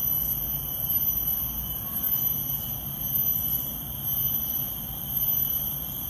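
Insects droning steadily in a high-pitched, continuous ring made of several thin tones, over a low rumble.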